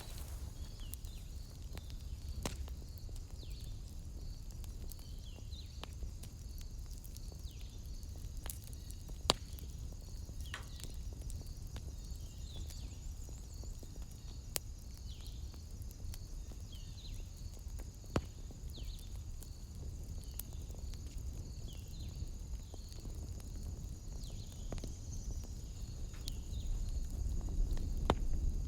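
Wood fire crackling in a fireplace, with a low rumble and a few sharp pops, the loudest about nine and eighteen seconds in. Insects chirp steadily in a high, even rhythm in the background.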